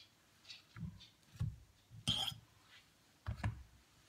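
A few soft knocks and taps of a knife cutting banana into small pieces in a bowl, with a brief ringing clink of the knife against the bowl about two seconds in.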